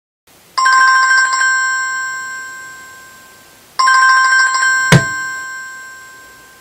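A metal bell rung twice by a rapid clapper, each short trill then ringing out and fading over about three seconds. A sharp knock comes about a second into the second ring.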